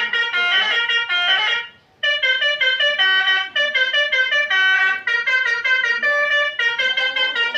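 Telolet basuri multi-tone bus horn playing a quick melody of short, sharply stepped notes, with a brief break about two seconds in.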